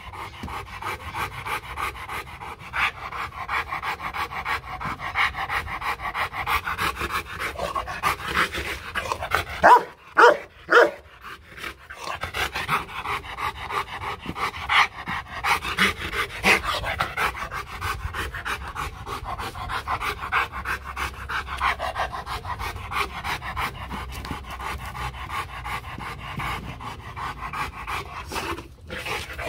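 Rottweiler panting rapidly and steadily, breaking off for three loud barks in quick succession about ten seconds in.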